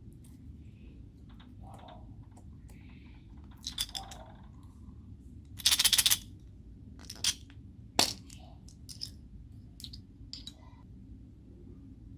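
Homemade slime being mixed and squeezed by hand: scattered sticky clicks and pops, with a louder burst of crackling about halfway and a sharp snap about eight seconds in.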